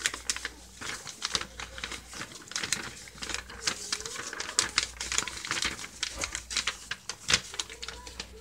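A sheet of paper being folded and creased by hand, giving irregular quick crackles and rustles, with one sharper snap near the end.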